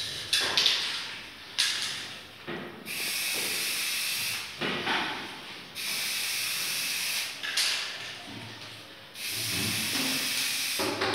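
Aerosol spray paint can hissing in three long, steady bursts of about two seconds each, after a few short spurts at the start.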